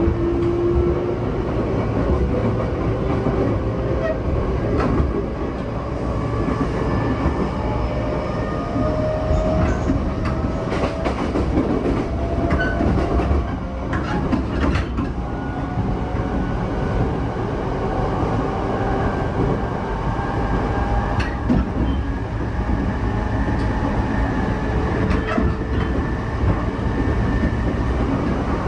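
JR E233-7000 series commuter train running at speed, heard from inside the car: a steady rumble of the wheels on the rails and a few scattered sharp clicks from the track. Over this sits the whine of the Mitsubishi IGBT-VVVF inverter and traction motors, several thin tones rising slowly in pitch.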